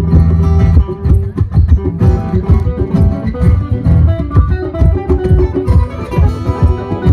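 Live music: a guitar playing quick plucked notes over a steady bass line.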